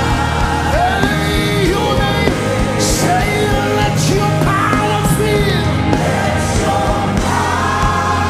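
Live gospel worship music: a band with sustained keyboard chords and a steady beat, with voices singing and calling out over it.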